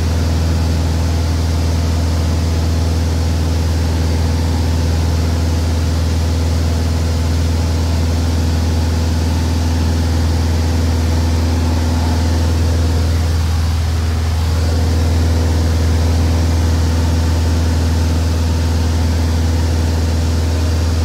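Glasair I RG light aircraft's piston engine and propeller droning steadily in cruise flight, heard inside the small cabin as a deep, even hum over a constant rush of air.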